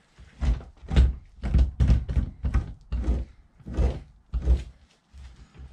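Fleshing tool scraping fat from a raccoon pelt stretched over a wooden fleshing beam, about two strokes a second, each with a dull knock against the beam.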